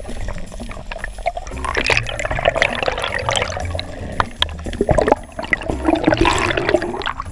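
Water gurgling and rushing around an underwater camera, swelling twice into bubbly washes with scattered clicks.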